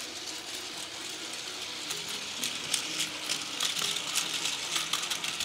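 Plarail toy train (Train Suite Shiki-shima model) running along plastic track, its small motor and wheels rattling with rapid fine clicks that get louder about midway as it comes nearest.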